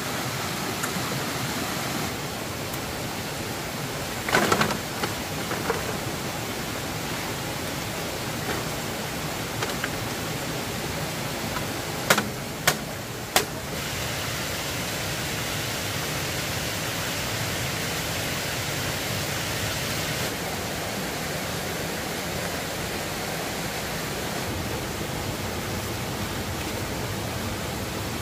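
A steady rushing hiss, with a short clatter of knocks about four seconds in and three sharp clicks a little over twelve seconds in.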